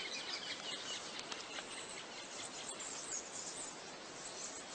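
Faint outdoor ambience: a steady even hiss with scattered faint high chirps and ticks.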